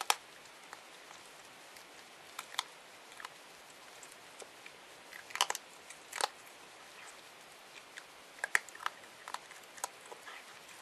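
Masked palm civet crunching dry dog food: irregular sharp crunches with pauses between, the loudest at the very start, around five and a half to six seconds in, and about eight and a half seconds in.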